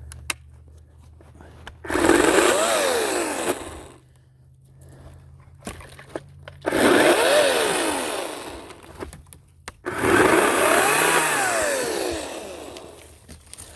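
Ryobi 40-volt 18-inch cordless chainsaw, its electric motor and chain run up and wind down three times, each burst rising in pitch and then falling away.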